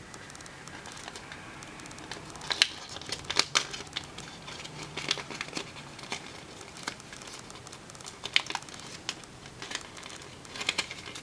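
Folded origami paper crinkling and crackling as fingers pinch and shape it, in irregular sharp crackles that come in a few small clusters.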